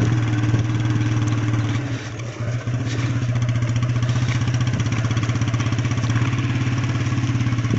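An engine running steadily at low speed with a fast, even pulse, dipping briefly about two seconds in.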